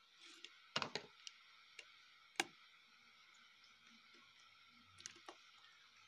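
A few small clicks and taps as an opened keypad mobile phone's plastic frame is handled and worked on: a quick cluster about a second in, a single click a little later, and two more near the end, over a faint steady hiss.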